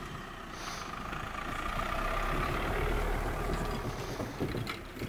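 Dacia Duster SUV driving slowly across grass towing a loaded box trailer, its engine running at low revs and growing louder as it comes close past, then easing off. A few light clicks near the end.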